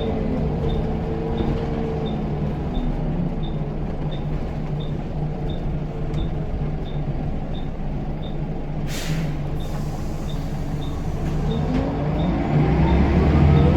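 Scania L94UB bus engine heard on board, its note falling away as the bus slows, then running low and steady. A short air hiss comes about two-thirds of the way through. Near the end the engine pulls away again with a rising turbo whistle. A faint regular ticking runs underneath.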